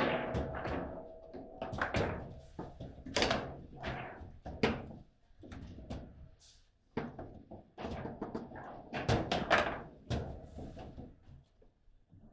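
Table football in play: quick, irregular sharp knocks and thuds as the ball is struck by the figures and hits the table walls, with a brief lull a little past the middle.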